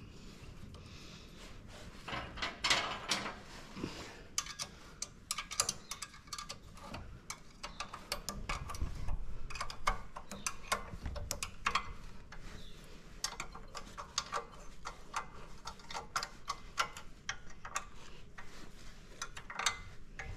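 A small hand ratchet clicking in quick runs, with metal tool clinks, as bolts on a minibike's band-brake bracket are tightened. The clicking starts about two seconds in.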